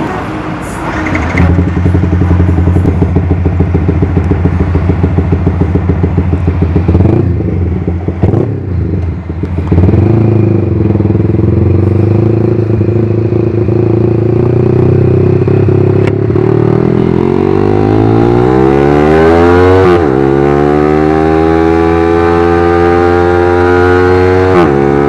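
Bored-up Yamaha R15 V3 single-cylinder motorcycle engine idling with a regular pulse, then pulling away. The revs climb, fall at an upshift about 20 seconds in, and climb again to another shift near the end.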